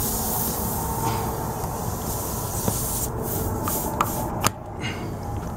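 Flat screwdriver and small tweezers working at a nail stuck in a tyre tread, giving a few sharp metal clicks, the loudest near the end. Under them runs a steady hiss that thins out after about three seconds.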